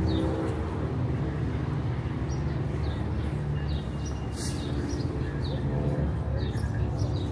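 City street traffic: a steady hum of engines and passing vehicles, with small birds chirping briefly over it again and again.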